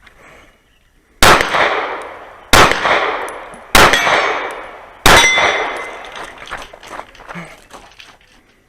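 Four pistol shots from a Sig P320 Carry, about 1.3 s apart, each followed by a long decaying ring from the steel target plates.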